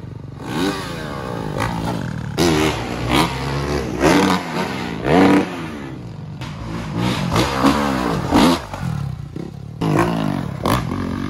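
Dirt bike engines revving hard again and again. The pitch rises and falls with each burst of throttle, with several sudden loud surges.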